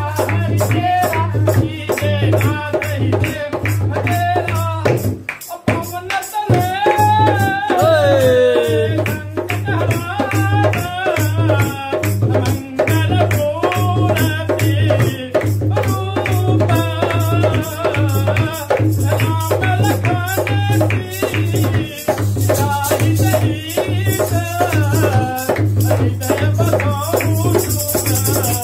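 Dholak played at a fast pace, a steady pulse of deep bass strokes under quick sharp strokes on the treble head, with a man singing over it. The playing breaks off briefly about five seconds in, then resumes.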